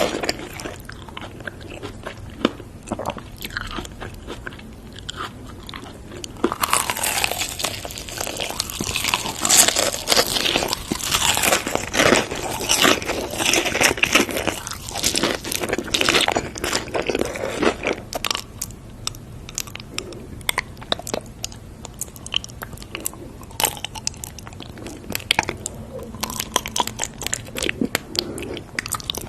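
Close-up eating sounds: crisp food being bitten and crunched, then chewed. The crunching is densest in the middle stretch and thins to scattered chewing clicks over the last third.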